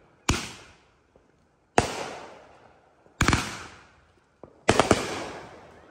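Consumer aerial fireworks bursting overhead: four sharp bangs about a second and a half apart, each fading away over about a second. The last two come as quick clusters of several reports.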